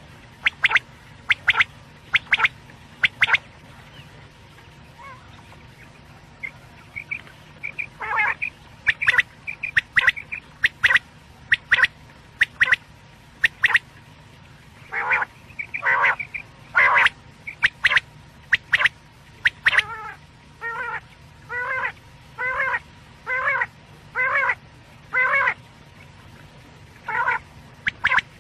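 Quail (batair) calling: short, sharp, repeated calls, irregular at first, settling from about two-thirds of the way in into a steady series of one call roughly every second.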